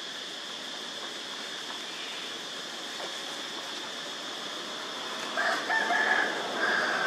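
A rooster crowing about five and a half seconds in, one call of roughly two seconds in two parts, over a steady high background hiss.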